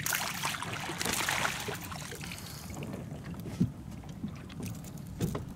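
Wind rushing over the microphone and water splashing against a small boat, with a couple of sharp knocks near the end.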